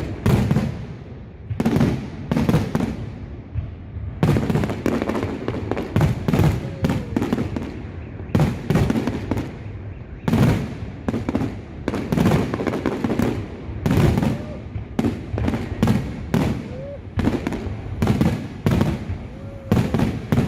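Fireworks display: shells bursting in a rapid, irregular series of loud bangs, several a second at times, with rumbling echoes between them.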